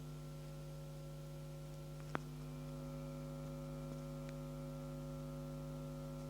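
Steady mains hum coming out of DIY 18-inch subwoofers, a low buzz made of several pitches. The owner traces it to thin, loose signal cables on the Behringer amplifiers that drive the subwoofers. A single faint click comes about two seconds in.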